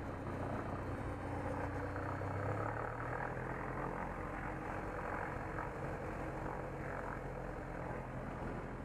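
Super Decathlon's four-cylinder Lycoming engine and propeller running steadily at low power while the aircraft taxis.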